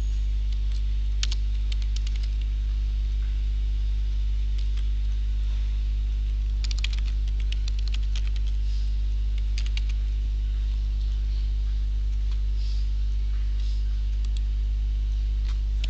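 Computer keyboard typing: scattered keystrokes coming in short runs with pauses between them, over a loud steady low electrical hum.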